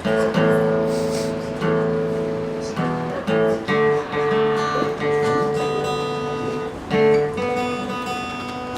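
Acoustic guitar playing the song's opening, chords strummed and picked, changing every second or so.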